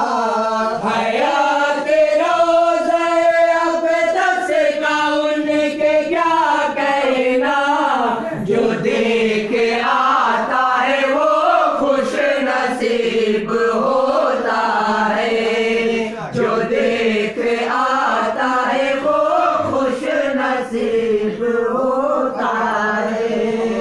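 Layered voices chanting and humming a wordless melody over a steady held low note: the vocal interlude between the verses of a naat.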